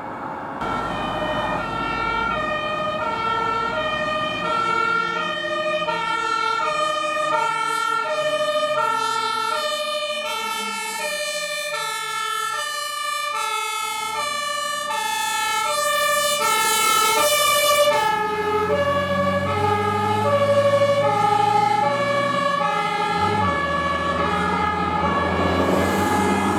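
Fire engine's German two-tone siren (Martinshorn) sounding continuously, alternating between a lower and a higher pitch about every half second. A low diesel engine rumble from the truck joins about two-thirds of the way through.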